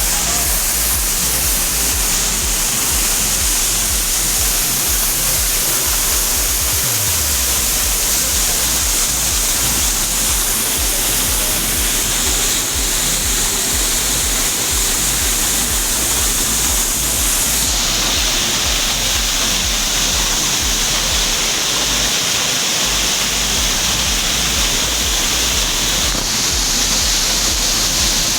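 Waterfall pouring close by: a steady, loud rush of water noise that turns brighter and hissier about two-thirds of the way through.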